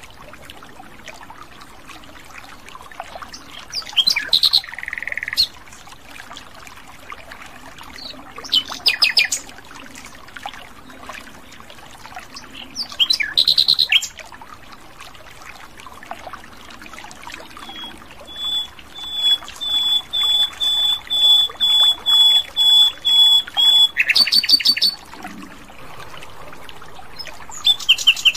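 Common nightingale singing: short, varied phrases separated by pauses of a few seconds, then, about two-thirds through, a long run of about a dozen repeated whistled notes a little over two a second, followed by a quick rapid phrase.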